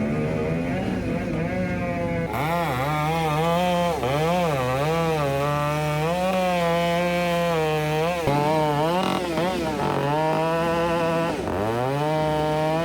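Chainsaw cutting through a stump at high revs, its pitch wavering up and down as the chain works through the wood. It gets louder about two seconds in, and near the end the revs drop briefly and climb back up.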